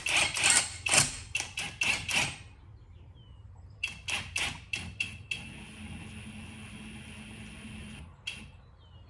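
Metal hand tools and sockets clinking and clattering in a run of quick knocks, then a steady hum for a few seconds with one more knock near the end.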